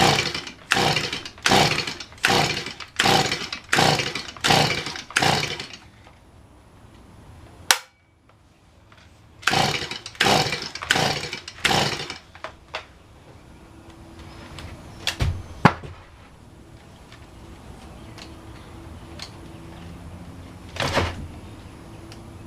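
Stihl MS170 two-stroke chainsaw being pull-started on choke: two runs of quick recoil-starter yanks, about nine and then about five, with the engine turning over but never catching into a run. After them come a few sharp knocks. The saw will not start despite a new carburetor, air filter, plug wires and switches.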